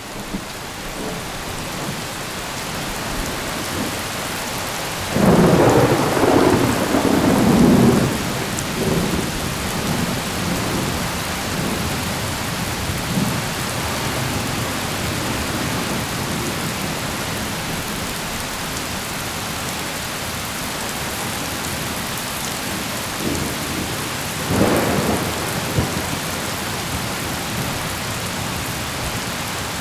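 Thunderstorm: steady heavy rain, fading in at the start, with a loud rolling rumble of thunder about five seconds in that lasts some three seconds, and a second, shorter rumble about twenty-five seconds in.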